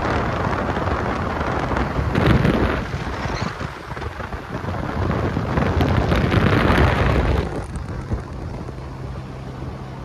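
Rushing road and wind noise inside the cabin of a moving 2004 Volkswagen Jetta TDI, swelling twice, then dropping to a quieter steady drone with a low hum near the end.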